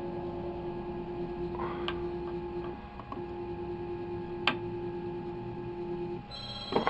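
RepRap Prusa 3D printer's stepper motors whining steadily as it prints, with a few sharp ticks and a short pause about three seconds in. Near the end the whine stops and a higher-pitched ringing tone comes in with a knock.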